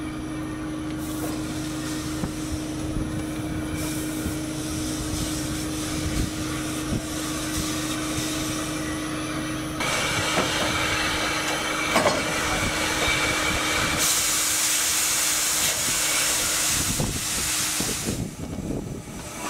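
Steam locomotive No. 15 'Earl David' working at a station platform: a steady low hum at first, then from about ten seconds in louder hissing with a few knocks. A strong burst of escaping steam hisses for about four seconds near the end.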